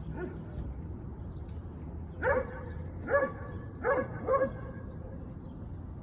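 A dog barking four short times, the last two close together.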